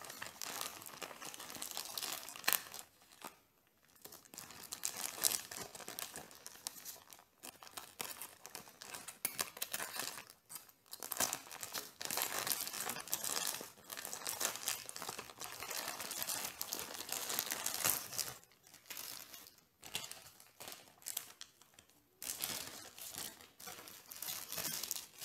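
Plastic postal mailer being cut into and torn open by hand, the plastic crinkling and ripping in spells with short pauses.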